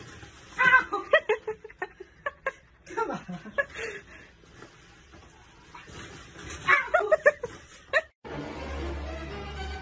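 A person laughing in short, rapid bursts, three times over.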